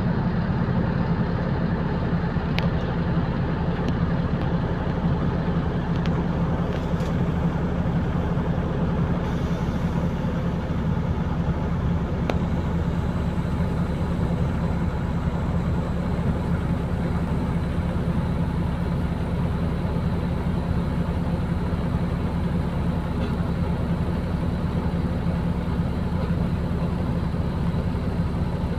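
Steady low rumble of a city bus's engine and running gear, heard from inside the passenger cabin, with a few faint clicks.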